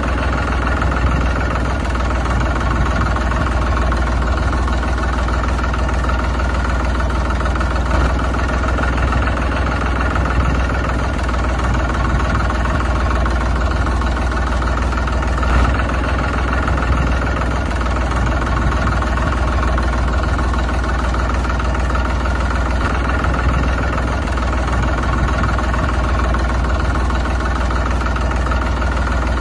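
Engine idling steadily and evenly, with a strong low hum and no change in speed.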